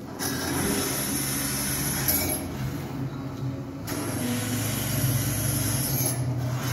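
Drill press running: a steady low motor hum, with stretches of high hiss that come and go.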